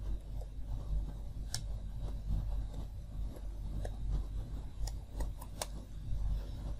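Computer keyboard keys clicking in scattered, irregular keystrokes over a steady low hum.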